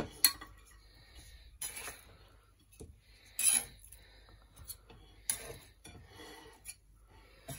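Metal kitchen tongs clinking against a wire roasting rack and metal baking tray while baked chicken drumsticks are lifted off: several sharp clinks a second or two apart, with faint scraping between them.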